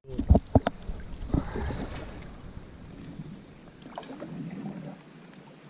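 Shallow river water splashing and lapping, with several sharp splashes and knocks in the first second and a half, then quieter.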